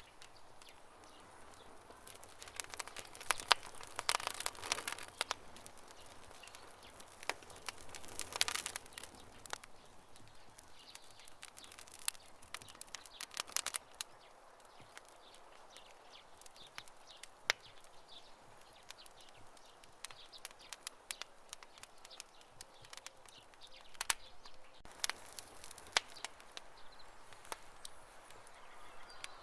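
Campfire crackling: irregular sharp pops and snaps of burning wood over a soft hiss, with denser, louder flurries of crackles a few seconds in and again about eight seconds in.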